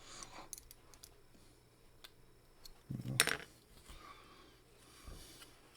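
Faint small clicks and scrapes of metal and plastic as a drilled-out 1/64 diecast Hot Wheels car is pried apart to free its interior and glass, with a sharper click about three seconds in, met by a short low vocal sound, and a soft thump near the end.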